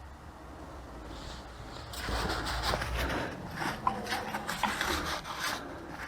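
Rubbing and scraping of transmission clutch and steel plates being handled and seated in the overdrive assembly, louder from about two seconds in, with several light clicks in the second half.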